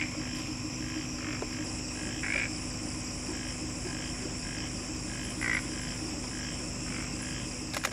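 Frogs calling in a chorus of short repeated croaks, about two a second, over a steady high-pitched insect drone. A few louder calls stand out about two and a half and five and a half seconds in.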